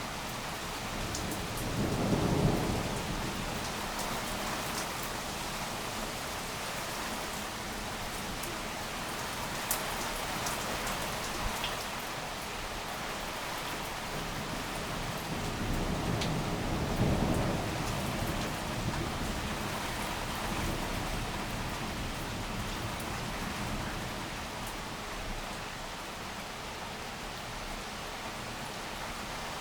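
Heavy thunderstorm rain falling steadily, with low rolls of thunder about two seconds in and again a little past halfway.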